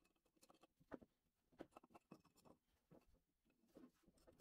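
Faint, scattered clicks and scrapes of pliers and a small hand tool on the metal parts inside a rusted ratchet wrench's head as it is taken apart.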